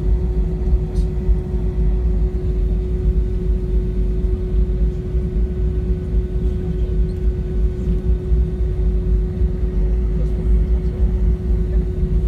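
Jet airliner's engines and airflow heard inside the passenger cabin: a steady low rumble with a constant hum.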